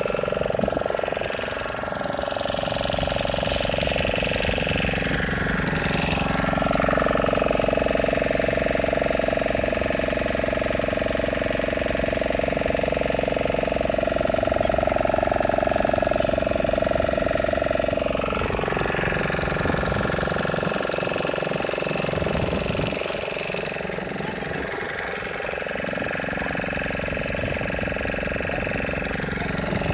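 Motorboat engine running steadily. Its pitch shifts a few times, about two to six seconds in, around eighteen seconds, and again near the end.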